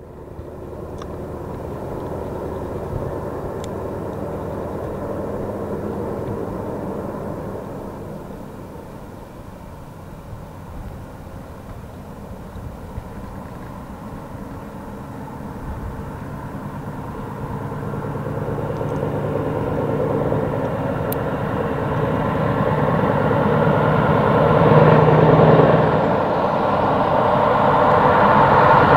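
A Scania R620's 16-litre V8 diesel engine running under load as the truck approaches, hauling a loaded lowboy trailer. It dips about a third of the way in, then grows steadily louder as the truck draws near.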